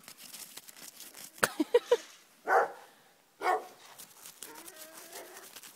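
Dogs barking: a few quick yips, then two loud barks about a second apart, with faint whining after. Underneath, the light crunching scratch of a dog digging in snow.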